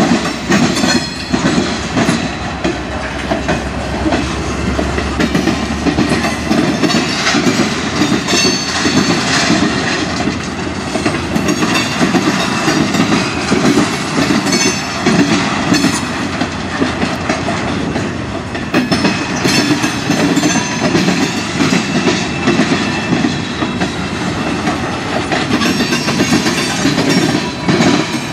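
A CSX manifest freight train's cars (covered hoppers and tank cars) rolling past close by, with a steady rumble and the continuous clatter of steel wheels on the rails.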